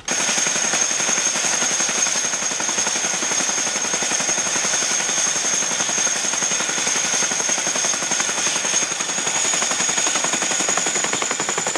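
Boeing CH-47 Chinook tandem-rotor helicopter with its rotors turning: rapid, even chopping of the blades over a steady high turbine whine, which rises slightly in pitch after about nine seconds.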